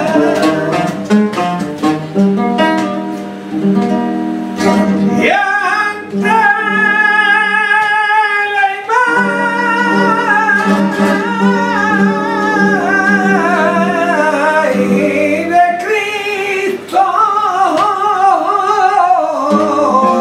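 Fandango flamenco: a male cantaor sings long, wavering held lines over a Spanish guitar. The guitar plays alone at first, and the voice comes in about five seconds in, pausing briefly around two-thirds of the way through.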